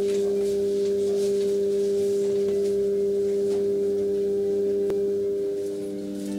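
A loud, steady drone of a few held pure tones, unchanging for about six seconds. It dips briefly near the end and gives way to a slightly different set of held tones.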